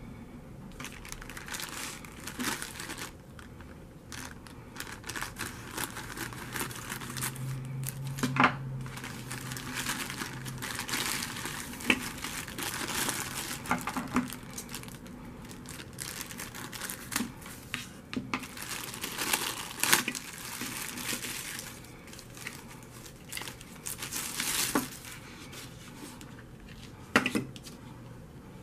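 Thin clear plastic bag crinkling and rustling as it is handled and opened, in irregular bursts, with a few sharp clicks along the way.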